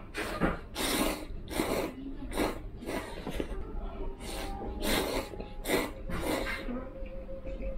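A person slurping ramen noodles from a bowl with chopsticks: a run of about nine short, loud slurps in quick succession.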